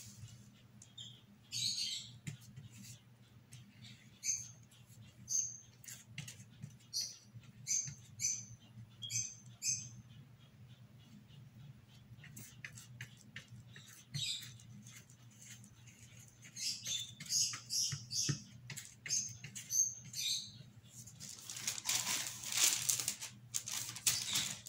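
Paintbrush scratching in short strokes across cardboard, with a small bird chirping on and off throughout in short high calls. Near the end comes a louder rustle as the cardboard is lifted and handled.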